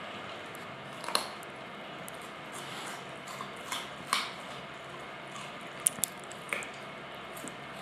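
A dog chewing a raw carrot: a handful of sharp, wet crunches at irregular intervals over a steady hiss.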